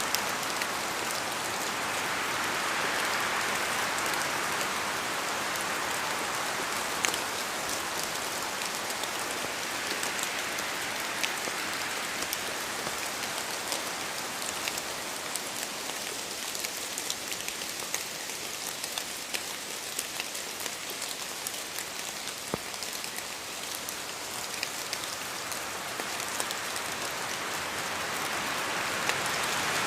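Steady rain falling, a continuous hiss with many individual drops clicking sharply on a surface, swelling and easing slightly in strength.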